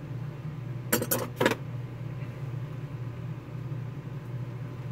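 Three or four quick clicks and clinks of small hard objects being handled, about a second in, over a steady low hum.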